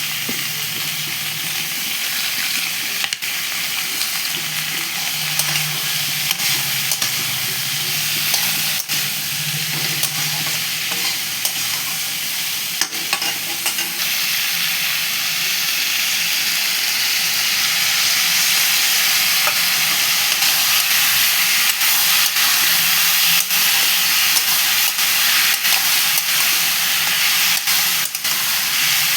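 Potatoes and long beans frying in hot oil, a steady sizzle with the occasional sharp click of a spatula stirring in the pan.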